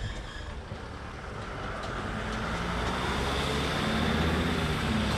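A motor vehicle running, its engine noise growing steadily louder from about a second in and staying loud near the end.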